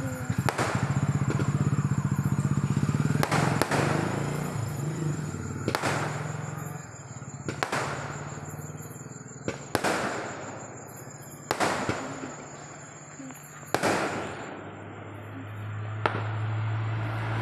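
Aerial firework shells bursting overhead: about seven sharp bangs, roughly two seconds apart, with a couple of fainter pops between them.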